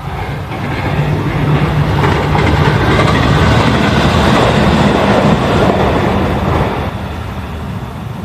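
A train passes by: its running noise builds over the first few seconds, stays loud through the middle, and drops off about seven seconds in.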